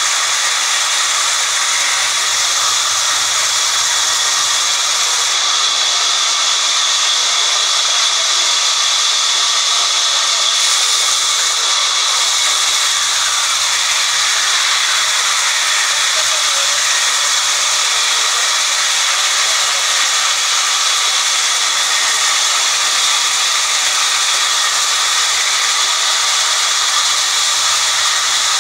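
Large sawmill band saw ripping a thick wooden slab lengthwise: the blade cutting through the wood makes a steady, loud hiss.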